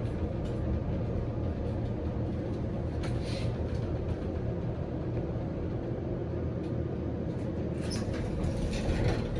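Steady low rumble of a hotel elevator in operation, which the rider takes for a Schindler.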